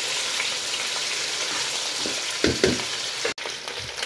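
Chicken pieces sizzling as they fry in hot oil with garlic-ginger paste in a kadhai, with a steady hiss. A little past halfway a spatula knocks and scrapes against the pan a few times, and just after three seconds the sound drops out for an instant before the sizzle goes on slightly quieter.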